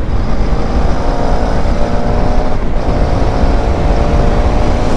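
Motorcycle engine pulling under full throttle, its note climbing steadily, breaking briefly about halfway through, then climbing again, over heavy wind rush on the rider's microphone.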